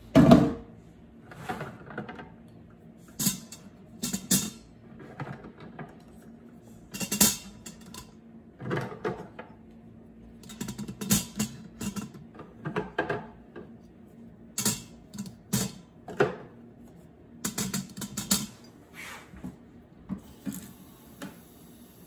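Eggs being set one at a time onto a wire trivet in a stainless steel Instant Pot inner pot, making light, irregular clinks and knocks against the metal, with a louder knock right at the start.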